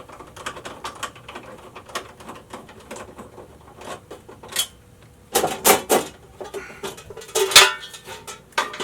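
Light clicks, then a run of sharp metallic clatters about halfway through, as circuit breakers and metal electrical-subpanel parts are handled.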